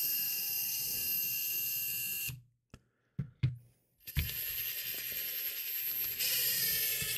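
Cordless drill/driver running slowly to unscrew the housing screws of a cordless impact driver. It runs steadily for about two seconds, stops for a moment with a few small clicks, then runs again for about three seconds. Its sound brightens near the end.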